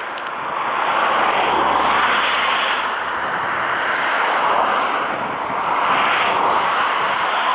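Road traffic noise: a steady rushing of tyres and wind that swells and eases every couple of seconds.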